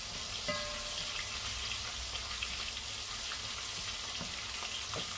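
Garlic and onion sizzling in hot oil in a pot, with a wooden spoon stirring them; a steady frying hiss with small crackles throughout.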